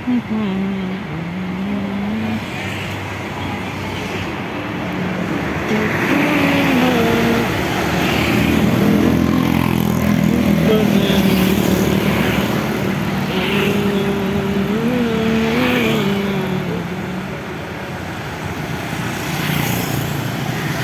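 A bus departing, its engine running under a basuri 'telolet' multi-tone horn that sounds held notes stepping up and down, the longest run near the middle to three-quarters of the way through.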